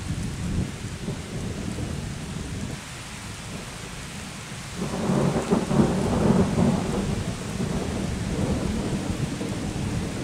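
Thunder rumbling over steady rain, the rumble swelling louder about halfway through and staying up.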